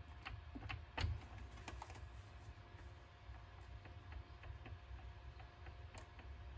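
Faint, scattered clicks and taps of a small craft knife working at a thin glued napkin in a resin mold, the sharpest click about a second in, over a steady low hum.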